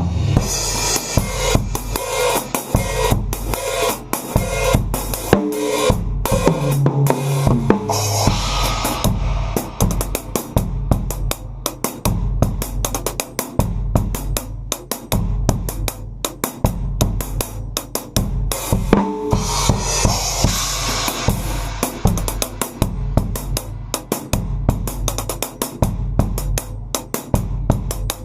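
Acoustic drum kit heard unmiked, played continuously: bass drum, snare and hi-hat, with bursts of cymbal wash about eight and twenty seconds in.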